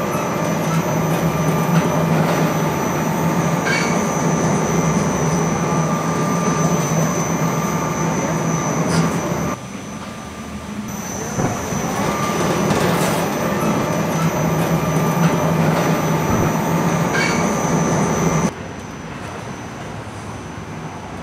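Electric motor of a construction material hoist running steadily as it lifts its cage. It gives a low hum with a high whine over it. The sound stops abruptly about halfway through, starts again a second or so later, and cuts off again near the end.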